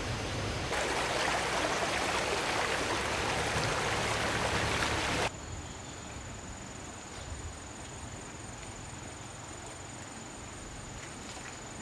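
Running stream water for about five seconds, cut off suddenly, then a quieter outdoor background with a thin, steady, high insect trill.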